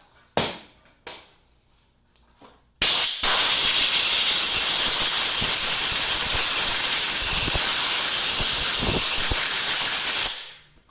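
A few light knocks, then a loud steady hiss that starts sharply about three seconds in, runs for about seven seconds and fades out near the end.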